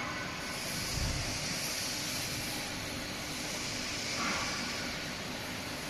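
Hydraulic lifting unit of a continuous belt fryer running as it raises the belt frame: a steady machine hum with a strong hiss, and a low thump about a second in.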